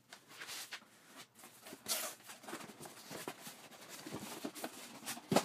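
A cardboard shipping box being opened: a blade slitting the packing tape, then cardboard flaps and an inner box scraping and rustling, as a run of irregular scratches and short rustles, with one sharper knock near the end.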